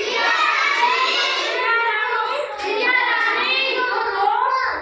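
Young children singing a Hindi nursery rhyme in high voices, without a break.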